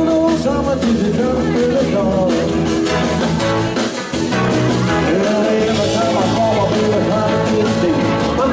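A rockabilly band playing live: electric guitar lines with string bends over a driving bass and drums, with no singing.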